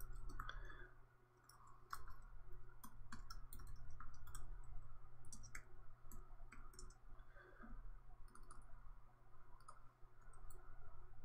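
Typing on a computer keyboard: irregular, quick key clicks, over a low steady hum.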